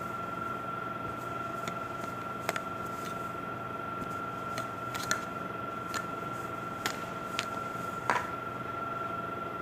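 Scattered light clicks and taps from hands handling modelling clay, about ten in all, over a steady room hum with a constant high whine.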